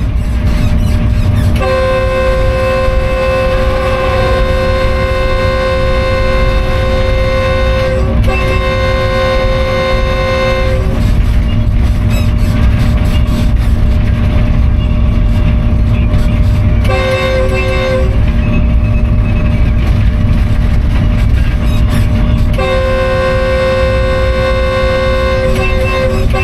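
Diesel locomotive's multi-tone air horn sounding as the train approaches a station: a long blast broken once, a short blast, then another long blast near the end. Under it runs the steady rumble of the running locomotive.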